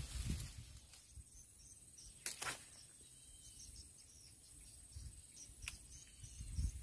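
Insects droning in a steady high thin tone with faint repeated chirps. A quick double click comes a little over two seconds in and a single click near six seconds.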